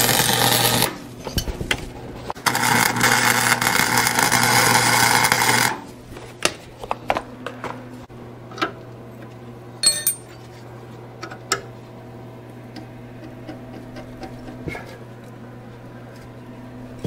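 Electric arc welder crackling and sizzling with a steady electrical hum, in two bursts: about a second at the start, then about three seconds from two and a half seconds in. It is followed by scattered sharp metallic clicks and taps of metal tools.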